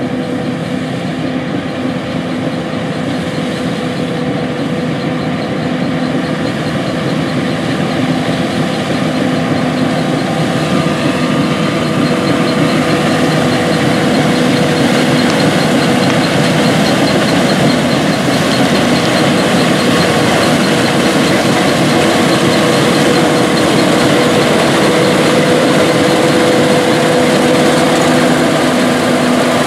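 John Deere S780 combine with a 40-foot HD40R hinge draper header harvesting wheat: steady engine and threshing drone with a steady hum, growing gradually louder as the machine comes closer.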